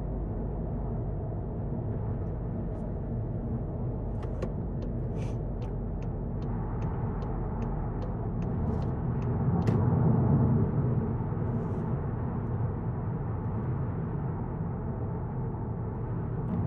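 Cabin sound of a Volkswagen Golf GTI mk7.5 with its 2.0-litre turbocharged four-cylinder, a steady engine and road rumble. From about four seconds in, an even ticking runs at about two to three ticks a second for roughly six seconds, like the turn-signal indicator. Around ten seconds in the engine grows louder for a moment as the car pulls away.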